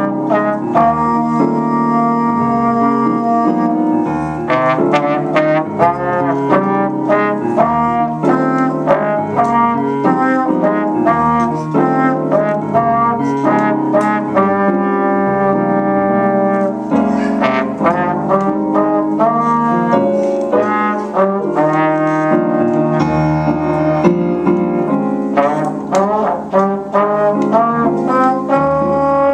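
Slide trombone and digital piano playing a duet: the trombone carries a melody of changing notes over the keyboard's accompaniment.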